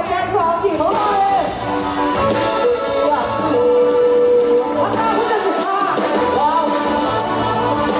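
Live pop band playing with a female lead singer: vocals over drums, bass and guitar, with a steady low bass pulse.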